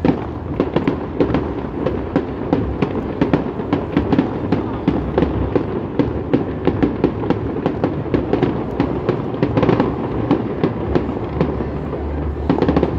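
Fireworks display: shells bursting in quick succession, a rapid irregular run of sharp pops and crackles, several a second, with a slightly denser cluster near the end.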